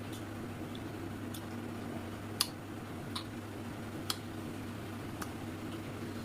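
Eating sounds from a rice-and-curry meal: about six short sharp clicks and smacks, the loudest about two and a half seconds in, over a steady low hum.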